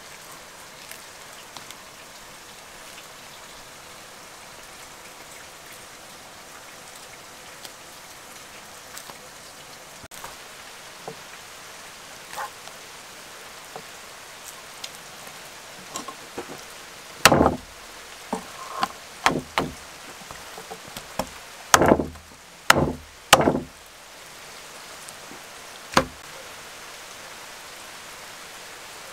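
Roast lamb being pulled apart by hand on a steel tray. Over a steady hiss, a run of sharp knocks and taps comes in the second half, the loudest about two-thirds of the way in, with a last single knock near the end.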